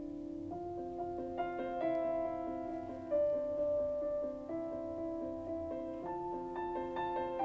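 Slow piano music: a melody of held notes over sustained chords, the notes changing about once a second.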